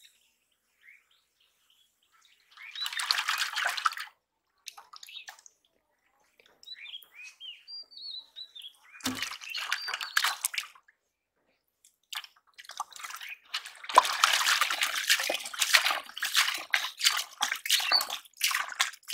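Muddy water sloshing and splashing in bursts, busiest and most continuous over the last six seconds, with a few short bird chirps about seven seconds in.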